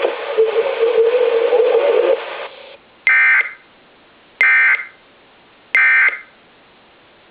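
An EAS encoder/decoder sending the End of Message signal: three short bursts of shrill digital data tones about a second and a half apart, marking the end of the relayed tsunami alert. Before them, about two seconds of the relayed radio audio cut off.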